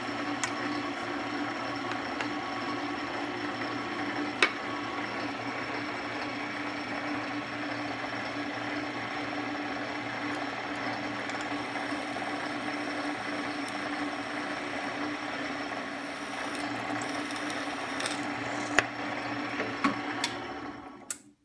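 Benchtop drill press running steadily with a motor hum while a small bit drills pilot holes in an aluminum plate, with a few sharp clicks along the way.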